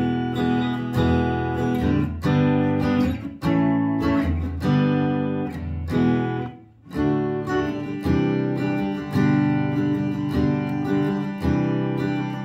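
Fender Acoustasonic Player Telecaster strummed chords played through a small amp, set to the middle selector position with the blend knob fully clockwise, the 'lo-fi position'. Chords are struck about once a second, with a brief break about six and a half seconds in.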